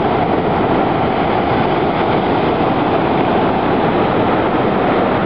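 Heavy surf breaking over coastal rocks and churning into white water: a loud, steady rush of waves with no separate crashes standing out.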